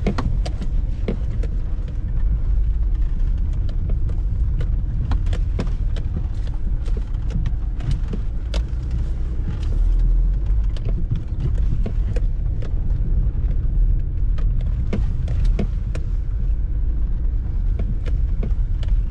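Inside a car crawling along a rutted dirt track: a steady low rumble from the engine and tyres, with frequent small knocks and rattles from the suspension and body over the bumps.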